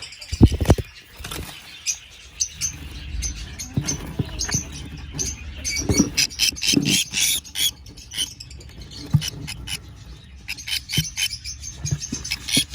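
Nestling cage birds squeaking and cheeping rapidly inside a nest box, with a few knocks and rustles from the box being handled.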